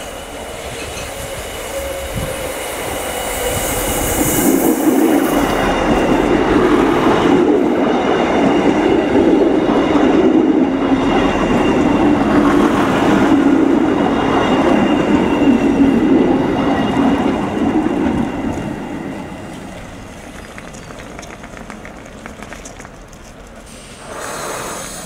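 Two coupled DB Class 628 diesel multiple units pulling into the station close past the platform: diesel engines and wheels on the rails, building over the first few seconds, loud for about twelve seconds, then dying down as the train comes to a stand.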